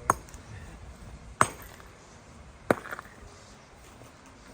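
Three sharp strikes of a hand tool on hard ground or stone, about one and a third seconds apart, in a steady working rhythm.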